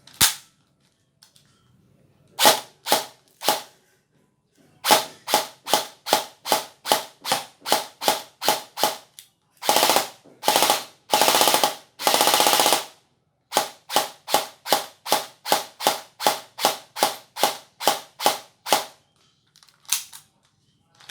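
D|Boys KAC PDW airsoft electric gun (AEG) dry firing without BBs, its gearbox cycling with a sharp click on each shot. First come single semi-auto shots at about two to three a second, then three short full-auto bursts, then another run of single shots.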